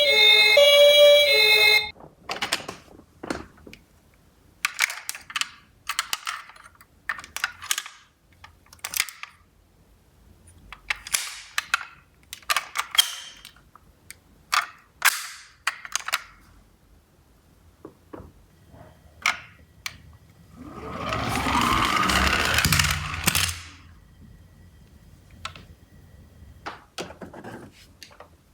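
An electronic two-tone ambulance siren stops about two seconds in, followed by a long run of sharp clicks and clacks of small toy cars knocking together. About two-thirds of the way through, a louder rushing sound with a rising tone swells for a few seconds and fades.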